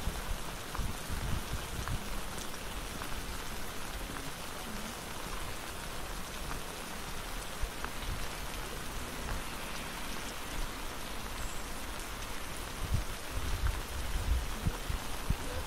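Steady rain falling on a wet paved path, with faint scattered drop ticks and a few low thumps near the start and again near the end.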